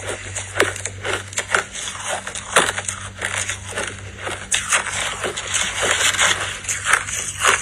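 Crushed ice being chewed in the mouth close to the microphone: dense, irregular crunches and crackles.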